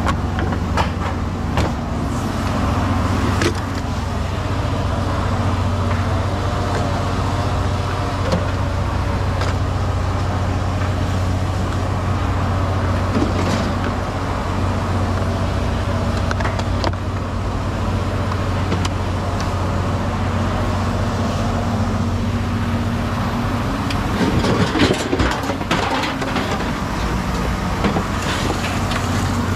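A vehicle engine idling steadily, with scattered knocks and clatter that gets louder and busier about 25 seconds in.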